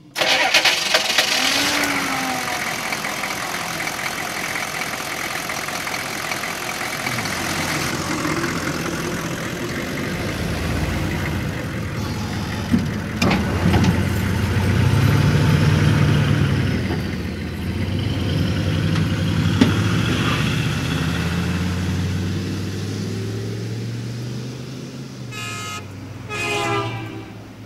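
Pickup truck engine starting abruptly and running, revving up and down as the truck pulls away over grass and drives off, its sound fading near the end. Two short honks near the end.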